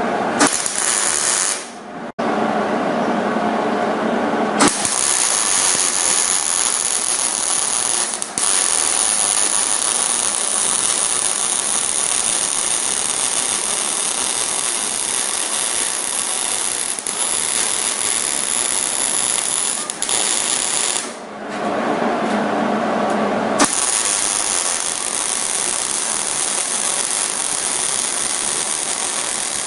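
MIG welding arc crackling and sizzling steadily as it runs a bead along an outside corner joint in steel, with the machine turned down for the corner. The arc breaks off briefly about two seconds in and again about 21 seconds in, then starts again.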